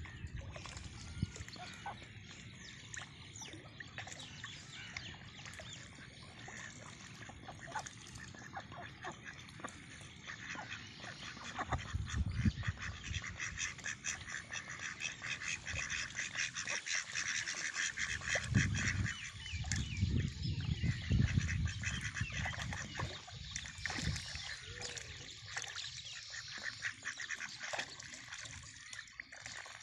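A flock of domestic mallard-type ducks feeding in shallow water, with duck calls over a dense, rapid crackling chatter that grows louder about twelve seconds in and fades near the end. A few low rumbles come and go partway through.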